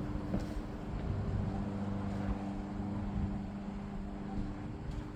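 A steady low mechanical hum with a few constant tones, like a motor or engine running, with faint handling noises over it.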